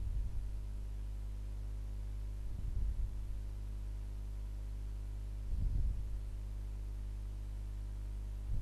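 Steady low hum, with a soft low thump about every three seconds.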